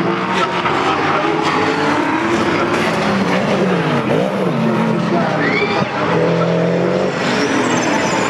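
V8 racing saloon cars running at speed, several engines at once whose pitches rise, fall and cross as the cars accelerate, shift and pass. A brief tyre squeal comes about five and a half seconds in.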